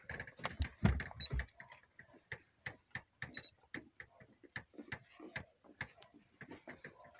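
A dog panting quickly, heard as a run of short, uneven clicks about two to three a second.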